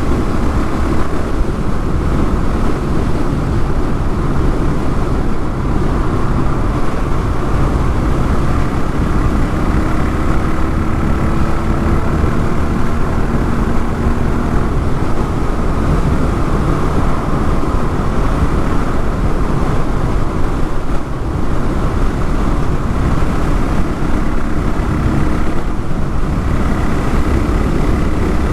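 Honda XR650L's air-cooled single-cylinder engine running steadily while the bike is ridden, a dense low rumble whose pitch drifts slightly up and down.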